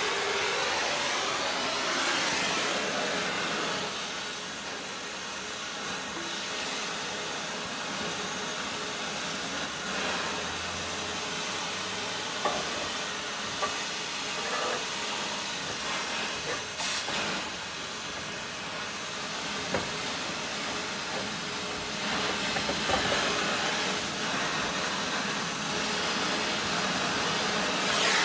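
Compressed air hissing from an air-hose blow nozzle, blowing steadily with surges and dips, with a few sharp knocks scattered through it.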